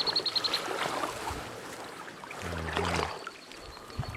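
Water sloshing and splashing around a person's legs as he wades through a shallow pond, with a brief low hum about halfway through.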